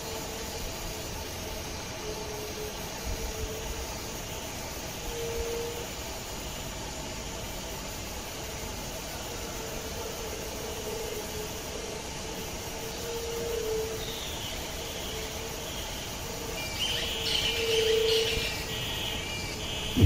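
Steady outdoor background noise with short low tones coming and going, and from about three-quarters of the way in a run of quick repeated high chirping notes that gets louder near the end.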